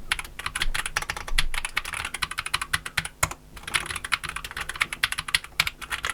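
Fast typing on the NocFree Lite split mechanical keyboard: its hand-lubricated switches, over sound-dampening foam, clacking in quick dense runs, with a brief pause about three seconds in.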